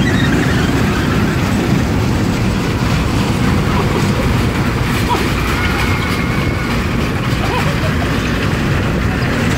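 Small caterpillar-style kiddie roller coaster train running around its low steel track: a steady rolling rumble from the cars on the rails, with wind buffeting the microphone.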